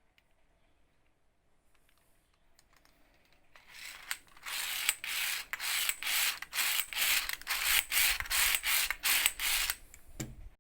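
German-made Archimedes drill worked in quick strokes, its spiral shaft spinning the chuck with a rattling, ratchet-like whir at about three strokes a second. A short low thump comes near the end.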